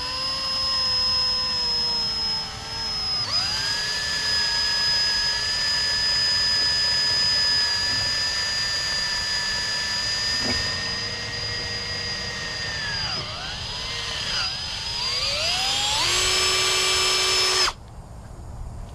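Electric drill running a 3/16-inch bit into the clamped aluminium top-end parts of a 7.3 Power Stroke injector, to cut a drain hole. The motor whine speeds up at the start and holds steady, dips and picks back up a few times near the end, then stops abruptly.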